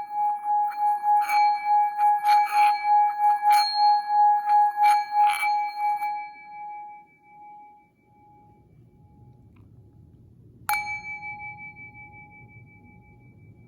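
Tibetan singing bowl being played: one steady, pulsing tone with higher overtones and several clinks, which fades away after about six seconds. Near the end the bowl is struck once and rings out.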